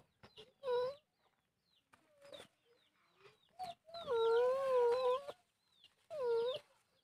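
Chickens calling: a short call near the start, a long wavering call in the middle and another short one near the end, with faint short high chirps between them.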